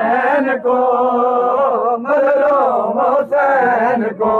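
Male mourners chanting a Punjabi noha, a lament for Imam Hussain, in long drawn-out held notes with brief breaks between phrases.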